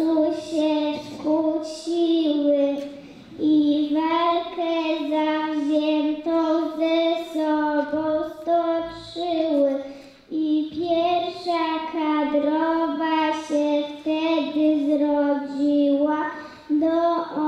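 Young children singing a song, in sung phrases with held notes, broken by two short pauses about three and ten seconds in.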